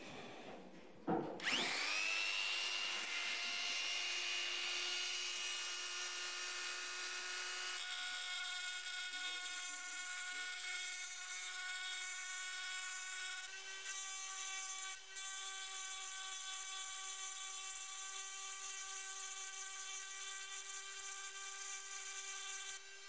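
A 135 W direct-drive rotary tool, driving a bit through its flexible shaft, is switched on about a second in. Its whine rises quickly to speed, then runs steady and high while the bit grinds into a metal plate, and it switches off near the end.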